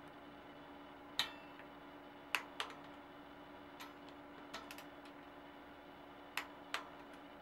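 Sharp clicks of a torque wrench as disc brake rotor bolts on a bicycle hub are tightened, several single clicks and two close pairs, over a faint steady hum.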